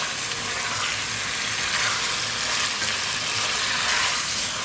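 Chopped green tomatoes and spices frying in hot oil in a pot, giving a steady sizzle, while a wooden spatula stirs and scrapes through them.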